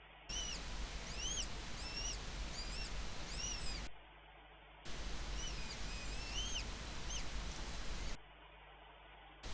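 High, thin chirping calls from nestling birds, each a short up-and-down note, several a second, over a steady low background hum. The sound drops out briefly three times.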